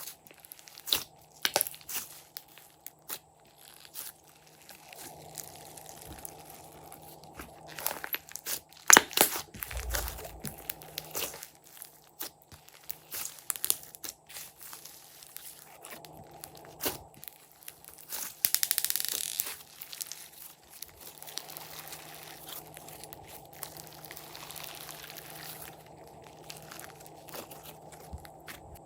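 Glossy slime being kneaded and mixed by hand, with irregular sticky clicks, pops and crackles and a longer rustling stretch about two-thirds of the way through.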